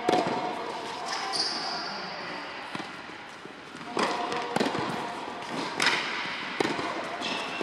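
Tennis rally: a tennis ball struck by racket strings and bouncing on a hard indoor court, a series of sharp pops at an uneven pace, echoing in a large hall. A brief high squeak falls in pitch about a second and a half in.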